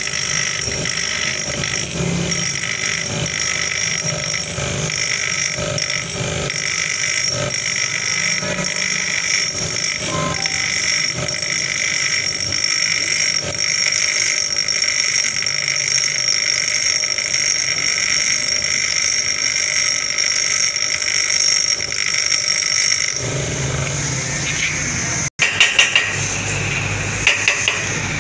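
Bench grinder's wheel spinning with a metal ring held against it, giving a steady high-pitched whine. About three seconds from the end it gives way to a few sharp metal hammer blows on a motorbike wheel hub.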